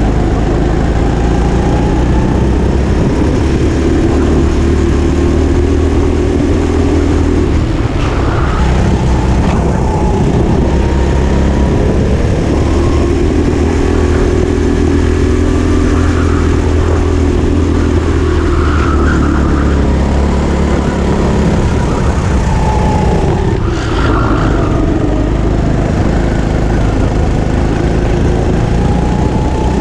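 Go-kart engine heard on board at racing speed, climbing in pitch along the straights and dropping back through the corners several times, over a constant low rumble.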